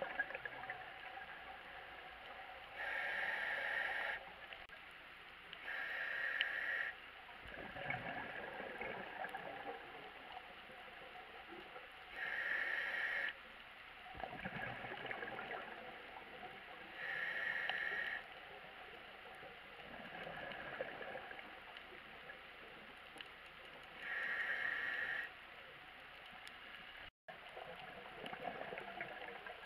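Scuba diver breathing through a regulator underwater: five hissing inhalations of about a second each, with low bubbling rumbles of exhaled air in between.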